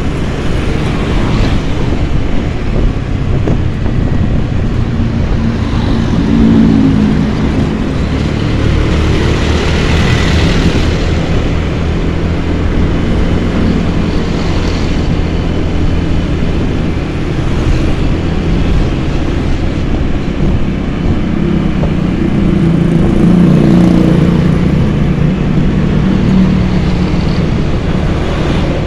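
Motor scooter running on the move, its engine note under a steady rush of riding wind and road noise. The engine swells a few seconds in and again past the middle.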